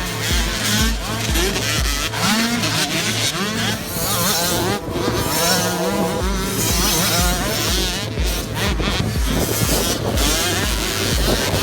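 Motocross bikes racing, their engines revving up and down again and again, over background music with a steady bass beat.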